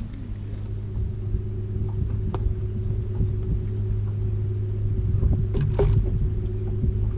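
Boat motor running steadily at slow trolling speed, a low even hum with a couple of brief knocks in the boat about two and a half seconds and nearly six seconds in.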